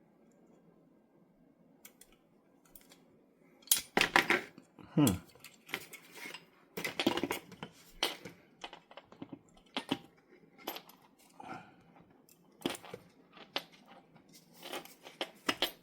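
Small metal revolver parts clicking and clinking as they are handled and fitted together during reassembly, in irregular sharp clicks and knocks that start about four seconds in.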